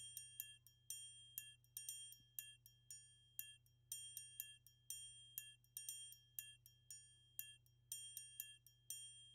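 Faint background music: a tinkling melody of short, bell-like notes, two or three a second.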